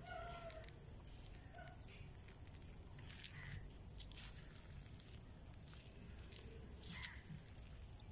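Faint outdoor background: a steady high-pitched whine, with a few brief sharp sounds spread a few seconds apart.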